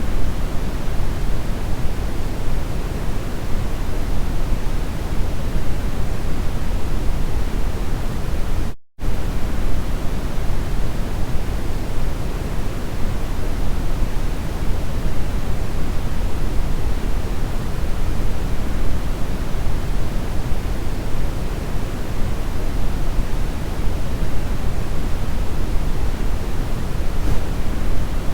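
Brown noise: a deep, steady hiss, heaviest in the bass, that drops out to silence for a split second about nine seconds in.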